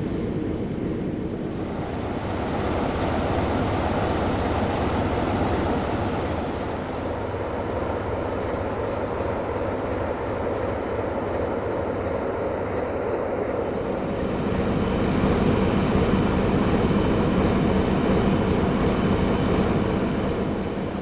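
Freight train of open wagons passing close by behind a ViaTerra Spedition 060-DA (LDE2100) diesel-electric locomotive: the steady hum of the locomotive's Sulzer diesel engine and the rumble of the wagons rolling on the rails. The sound grows louder about two-thirds of the way through.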